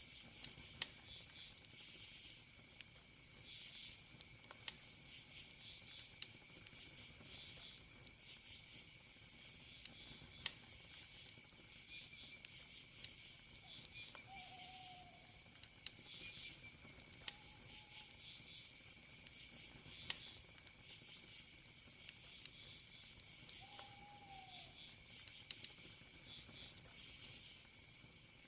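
Wood fire crackling, with sharp pops every second or so, over a steady chorus of crickets chirping in pulses. A few short low calls come through around the middle and near the end.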